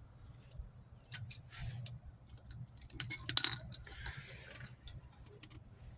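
Light metallic clinks and taps of drum brake hardware and a hand tool as a brake shoe spring is worked into place, irregular, with the sharpest click about three and a half seconds in and a couple of short scrapes.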